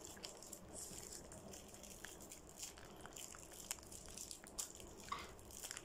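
Faint crunching bites into chocolate-coated ice cream and small crinkles of plastic wrappers, heard as scattered soft clicks.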